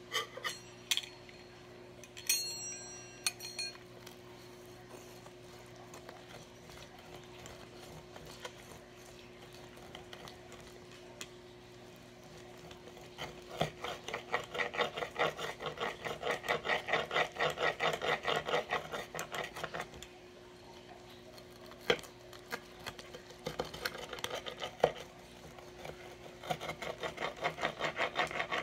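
Wheel pizza cutter rolled back and forth through a pepperoni pizza and scraping on the baking pan, in quick repeated strokes about four a second, in a long run in the middle and again near the end. It opens with a few metallic clinks, and a faint steady hum runs underneath.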